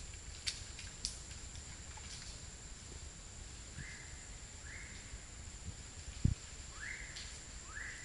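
Tropical rainforest ambience: a steady high-pitched insect whine, with a bird giving a short rising call four times, about once a second, from halfway through. A few sharp clicks near the start and one low thump a little after six seconds.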